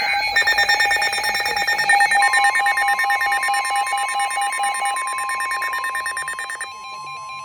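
Several NOAA weather radios alarming at once for a severe thunderstorm warning: fast pulsed alert beeps at different pitches overlap, and about two seconds in the long steady 1050 Hz warning alarm tone joins them. The beeping stops near the end while the steady tone continues.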